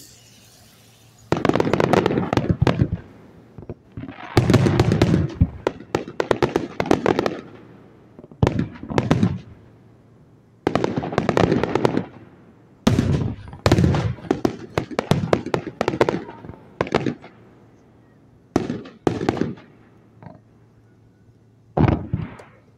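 Fireworks display: volley after volley of rapid bangs and crackling as comets and shells are fired, each volley lasting a second or two with short gaps between.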